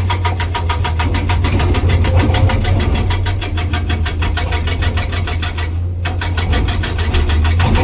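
Hydraulic breaker on a Komatsu PC200 excavator hammering hard rock: a rapid, even hammering of about ten blows a second that breaks off briefly about six seconds in, over the steady drone of the excavator's diesel engine.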